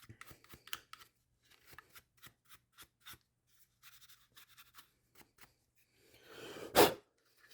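Small brush scrubbing dirt out of a sticky car power-window switch: a run of quick, light scratching strokes, then a short, loud rush of noise near the end.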